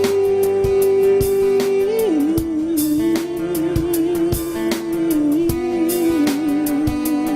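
Background music: a song with guitar and drums under a long held melody note that drops in pitch about two seconds in and then wavers.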